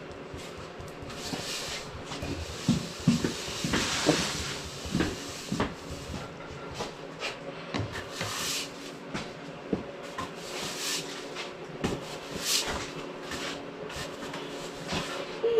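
Hands-on fiberglass repair work on a car hood: irregular light knocks and clatter, with short swishing strokes every few seconds as the resin-soaked fiberglass is worked down.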